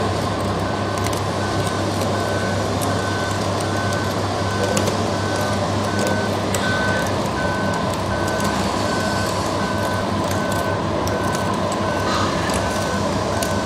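Radio-controlled scale model tracked conveyor driving on its tracks, its warning beeper sounding steadily about every half second over a continuous motor hum.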